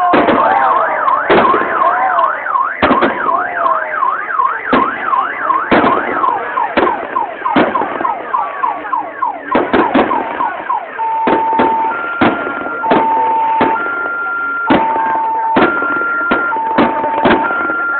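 Aerial fireworks shells bursting in repeated sharp bangs, while an electronic alarm siren cycles through its patterns: a fast up-and-down warble, then repeated falling sweeps, then a steady alternating high-low two-tone over the second half.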